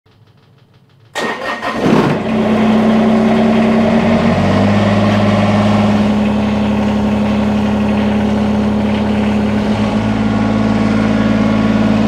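Kubota BX subcompact tractor's three-cylinder diesel engine cranked by the starter about a second in, catching within a second and settling into a steady idle.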